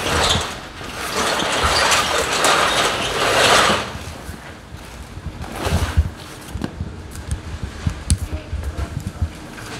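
Plastic and vinyl curtain sheeting rustling and crinkling loudly as it is pushed aside for the first few seconds. After that come scattered soft low thumps and a few clicks.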